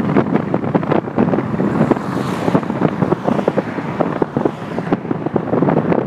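Wind buffeting the microphone of a moving vehicle, mixed with road noise and a dense run of short knocks and rattles as it rolls over a patched, broken road surface.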